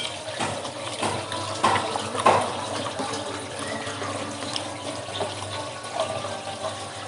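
Mukbang eating sounds: chewing, with a few short clicks of mussel shells and rice handled by hand, over a steady running-water hiss in the background.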